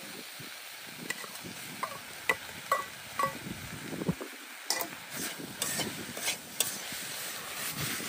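Shredded potato and onion stir-frying in a frying pan over a wood fire: a steady sizzle, with the spatula scraping and clinking against the pan a dozen or so times, more often in the second half.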